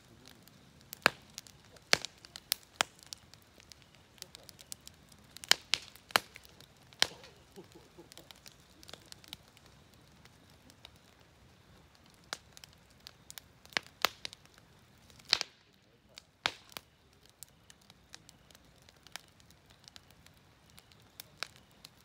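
Firewood burning in a campfire, crackling with sharp, irregular pops and snaps over a faint hiss. The pops come thickest in the first third, with one loud snap about fifteen seconds in.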